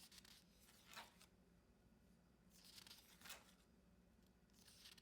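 Faint paper rustle of mini planner pages being turned, twice: once about a second in and again about three seconds in.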